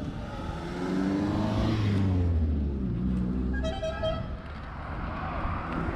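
A motor vehicle passes close by on the road, its engine note falling in pitch as it goes past. A little over halfway through, a horn gives one short toot. More traffic follows near the end.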